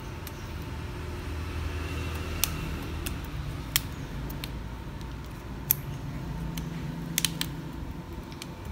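Sharp plastic clicks as the frame of a Samsung Galaxy A7 2018 phone is pried apart by hand and its clips let go: a few single clicks spread out, then a quick run of three near the end, over a low steady hum.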